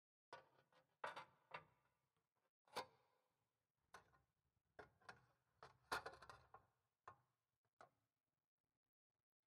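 Quiet, irregular metallic clicks and knocks, about a dozen, the loudest around a second in and about six seconds in: the pressed-metal chain cover halves of a Honda CD70 being handled and fitted together over the rear chain.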